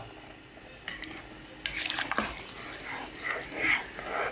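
A spoon stirring a thick, simmering bean and salted-fish sauce in a pan: soft, irregular wet squelches and small clicks that grow louder toward the end.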